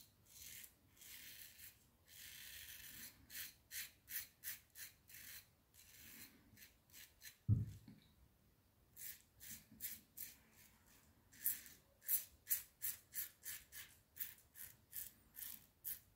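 Double-edge safety razor (Laugar Skogsrå, an R41-style head) scraping through lathered stubble in short, faint strokes, which come quicker in the second half at about two or three a second. One brief low thump about halfway through.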